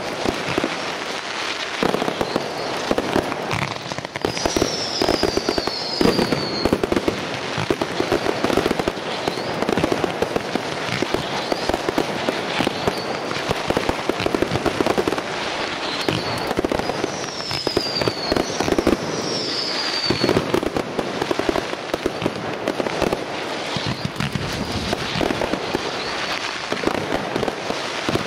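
Professional firework display: a continuous barrage of shell bursts and dense crackling, with several short whistles that fall in pitch.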